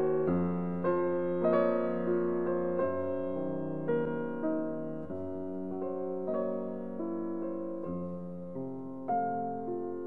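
Background piano music: slow notes and chords, each struck and then dying away.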